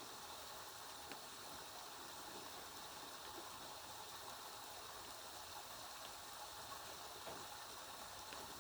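Steady rain falling: an even hiss of water with a few faint drop ticks.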